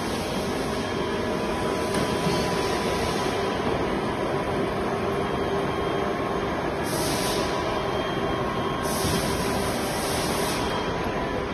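Backhoe loader's diesel engine running steadily, with two bursts of hiss, the second longer, about seven and nine seconds in.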